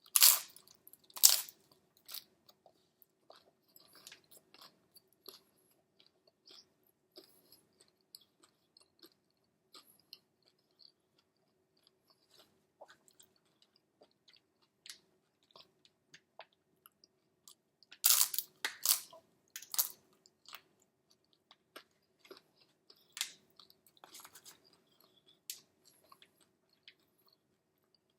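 A person chewing and crunching on a taco, with scattered crisp bites and smaller chewing clicks; the loudest crunches come about a second in and again about two-thirds of the way through.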